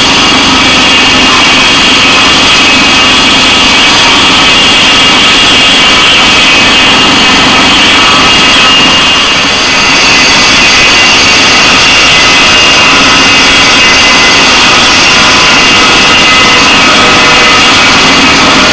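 Mobile Dimension Saw portable sawmill running hard, its engine-driven circular blade cutting through a cedar log: a loud, steady engine and saw noise with a high whine on top, easing briefly about halfway through.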